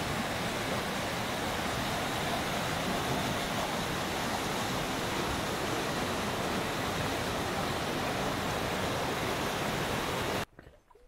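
Mountain creek running fast over boulders in whitewater rapids, a steady rush of water. It cuts off abruptly near the end.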